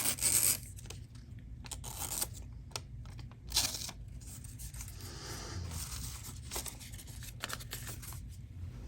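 Freshly zero-ground Chris Reeve Umnumzan tanto blade slicing through thin phone-book paper in a series of short cuts, with paper rustling in between.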